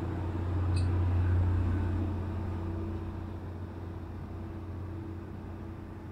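Steady low drone of a river cruise boat's engine, swelling louder about a second in and then easing off. A brief high chirp sounds just before the swell peaks.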